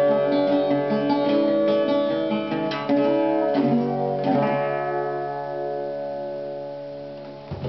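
Phil Crump ten-course Irish cittern played in a phrase of picked notes and a few strummed chords. The last chord, a little after halfway, is left to ring and slowly dies away.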